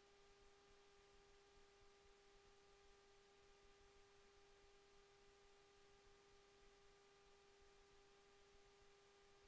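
Near silence: a faint, steady electrical hum, one unchanging tone with fainter overtones, over low hiss.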